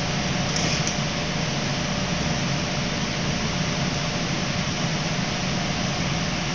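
Steady ventilation noise, like air conditioning or an extractor fan: a constant hiss over a low hum.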